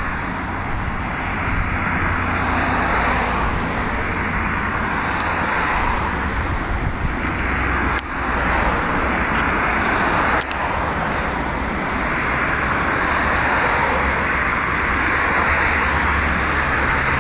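Boat engine running steadily under a loud, even rush of wind and water, with two brief clicks partway through.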